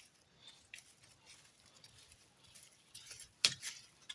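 Faint scattered rustling and light tapping, with one sharp knock about three and a half seconds in.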